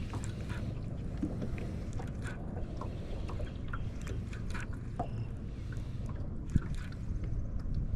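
Small fishing boat sitting on the water: a steady low rumble with scattered small irregular clicks and water sounds against the hull, and one sharper knock about six and a half seconds in.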